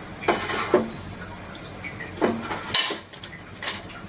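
Metal strainer scraping and clinking against the kadai as fried chana dal is scooped out of the hot oil, about five separate clatters, over the low steady hiss of the frying oil.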